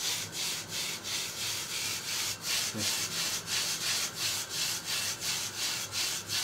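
Kway teow noodles frying in a hot pan: a steady sizzling hiss that pulses about four times a second.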